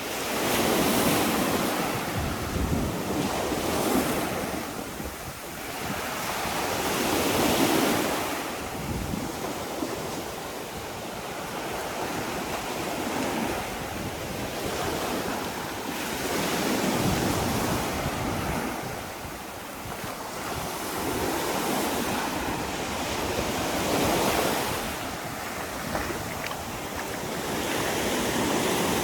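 Waves breaking and washing up the beach, swelling and fading every few seconds, with wind buffeting the microphone.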